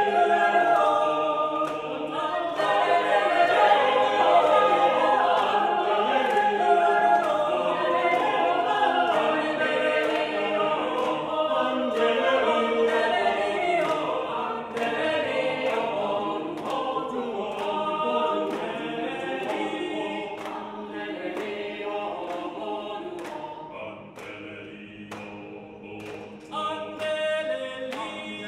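Mixed-voice chamber choir of sopranos, altos, tenors and basses singing unaccompanied in several parts, dropping to a soft passage about twenty-four seconds in and swelling again near the end.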